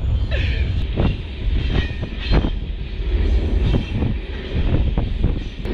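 Mauritanian iron ore freight train running, heard from on top of an open ore wagon: a steady deep rumble with irregular metallic clanks and knocks from the moving wagons.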